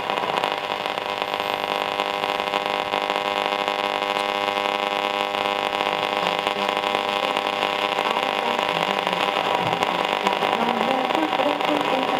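Nordmende Elektra valve radio's loudspeaker on long wave, giving a steady buzzing hum with no station tuned in. The pitch of the hum wavers over the last few seconds as the tuning dial is turned.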